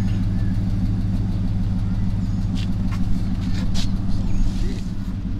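A motor vehicle engine idling steadily, a low even hum, with a few short sharp clicks about halfway through.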